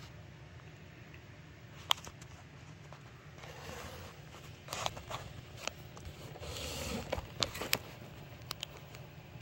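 Handling noise: a sharp click about two seconds in, then rustling and scraping with several clicks, and a few small clicks near the end, over a steady low hum.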